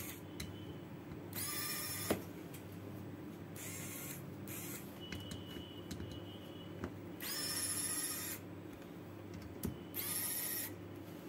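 Electric precision screwdriver whirring in four short bursts, each about a second or less, as it drives out the screws holding a hard drive's circuit board. Small clicks of the bit and hands on the screws come between the bursts.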